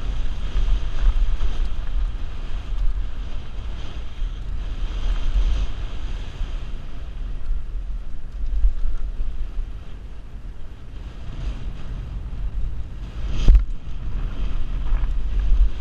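Wind buffeting the microphone over the rumble and rattle of a downhill mountain bike riding a trail. One sharp knock about two seconds before the end.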